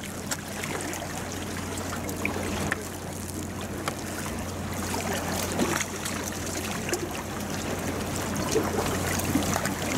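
Harbour water lapping and trickling against a concrete seawall, with a steady low hum and a few faint scattered clicks.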